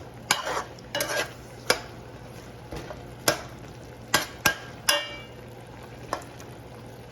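A spoon stirring chicken feet coated in caramelised brown sugar in a pot, with irregular knocks and scrapes against the pot over a steady sizzle. One knock near the five-second mark rings briefly. This is the browning stage of pelau, when the meat is turned in the burnt sugar so it takes on colour.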